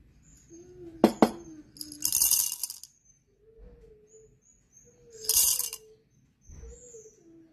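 Dark-roast coffee beans poured from a glass jar into a plastic cup on a kitchen scale, rattling against the cup in two short pours. Two sharp clicks come about a second in.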